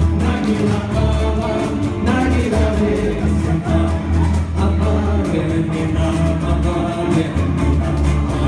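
Live band music: a man singing into a microphone, backed by a strummed acoustic guitar and a second guitar, with a steady beat and sustained low notes underneath.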